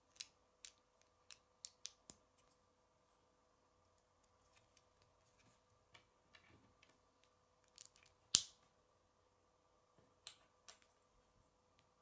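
Small plastic Lego bricks clicking and snapping as they are handled and pressed together: scattered sharp clicks, the loudest a little past the middle.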